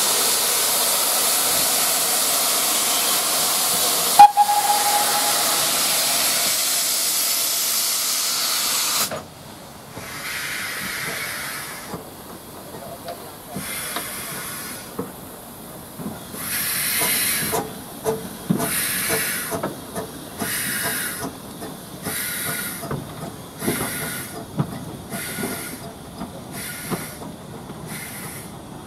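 Steam locomotive, a GWR pannier tank, hissing loudly with escaping steam for about nine seconds, broken by one sharp knock about four seconds in. The hiss cuts off and the engine draws away, its exhaust chuffs slow at first and steadily quickening.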